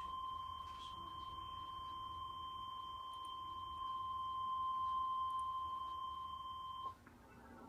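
NOAA Weather Radio 1050 Hz warning alarm tone: one steady, high-pitched beep that cuts off suddenly about seven seconds in. It signals that a weather warning broadcast follows.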